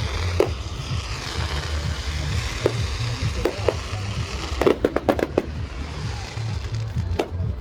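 Fireworks bursting: single bangs scattered through, then a quick run of sharp cracking bangs about five seconds in, over a steady low rumble.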